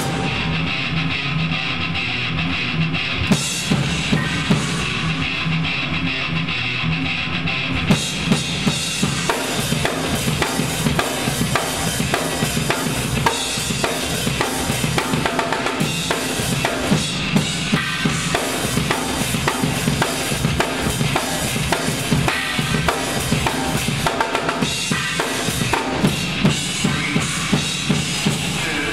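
A drum kit played live. For the first eight seconds or so there are a few separate hits over a steady low drone, then fast, dense drumming with bass drum, snare and cymbals.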